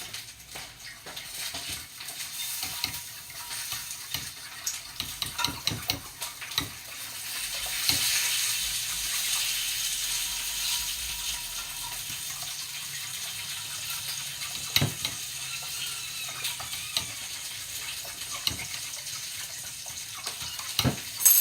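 Pork link sausages frying in grease with a steady sizzle, while eggs are stirred in a pan with a utensil that scrapes and clicks against it. The sizzle grows louder about eight seconds in, and there are a few sharper knocks of the utensil on the pan.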